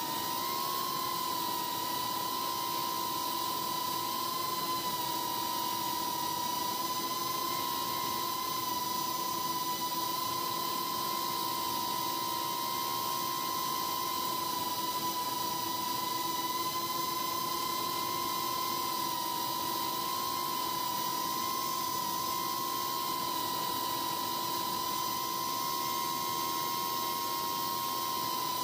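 Brushless motors and propellers of a 3-inch micro FPV quadcopter holding a hover on a test flight of a new PID tune: a steady, even whine whose pitch wavers only slightly.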